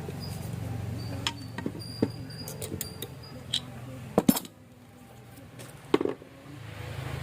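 Small hard parts of a fishing reel clicking and clinking as they are handled during repair, with the loudest a sharp double click about four seconds in and another near six seconds.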